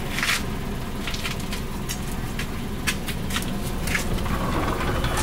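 Scattered light clinks and clacks of ceramic ramen bowls and chopsticks knocking on a metal tray as it is carried and handed over, over a low steady rumble.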